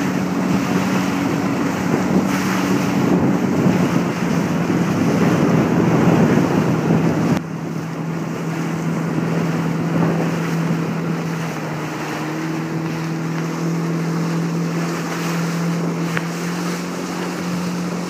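Inflatable motorboat's engine running steadily at speed, with wind buffeting the microphone and water rushing past the hull. The noise drops suddenly about seven seconds in, and the engine's hum carries on underneath.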